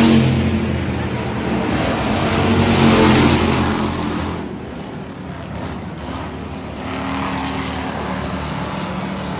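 Pure stock dirt-track race cars passing close by at speed with their engines running hard, loudest at the start and again about three seconds in, then quieter and steadier as the cars move off around the far end of the track.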